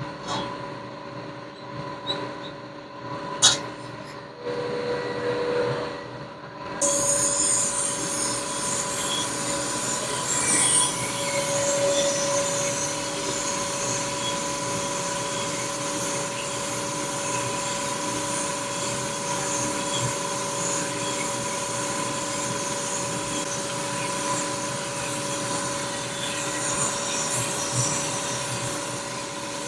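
Machine tool running steadily while a boring bar cuts the main bearing bores of an S44 engine block: a steady hum with held tones and a metallic squealing rub of the cut. About seven seconds in, the cutting noise turns brighter and hissier.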